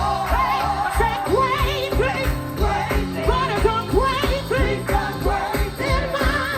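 Live gospel music: singers over a band with a steady beat.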